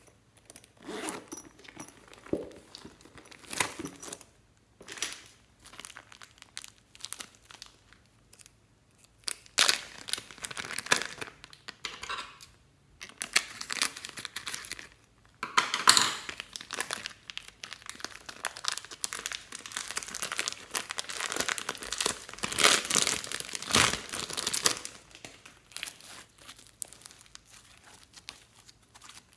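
A plastic zip-lock bag full of slime crinkling as it is handled and cut open with scissors, in a run of short crackly bursts that thickens into steady crinkling through the middle.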